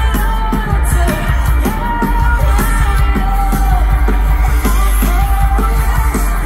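Live rock band with a woman singing long, held notes over a steady drumbeat and heavy bass, heard through a large outdoor concert PA from within the crowd.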